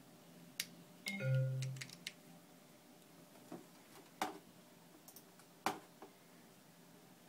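Small sharp clicks from handling a key-fob style keychain camera and its USB cable, with a short low buzz a little over a second in, the loudest sound here.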